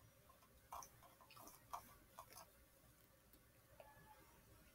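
Near silence, with a few faint, short clicks scattered through the first half.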